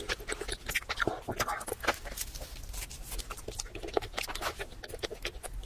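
Close-miked eating sounds: a dense run of sharp mouth clicks and chewing, with the crackle of a crusty baguette sandwich being picked up and handled.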